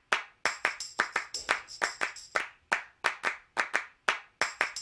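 Outro music track: a steady beat of sharp handclap-like hits, about three to four a second, with a high shimmering chime layered over it about half a second in and again near the end.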